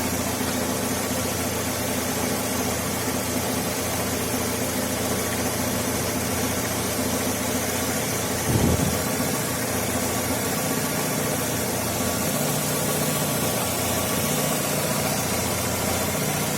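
Chevrolet Lacetti 1.6 four-cylinder petrol engine idling steadily, with one short, louder, falling sound about eight and a half seconds in.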